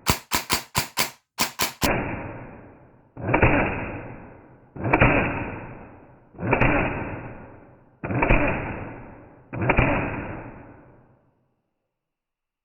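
Airsoft gun with a DSG double-sector gearbox cycling: a rapid string of sharp mechanical clicks at real speed, then six shots slowed down, each drawn out into a long, low, decaying whirr about a second and a half apart.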